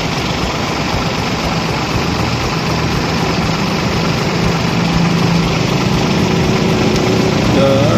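Truck engine idling steadily close by.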